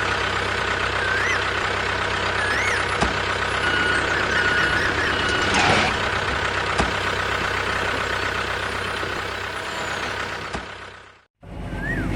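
Steady engine-like mechanical running noise with a few short high chirps over it, fading out near the end.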